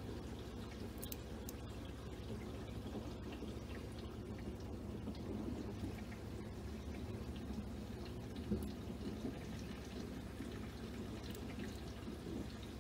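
Aquarium water and filter running steadily: a low hum with trickling water and occasional faint clicks.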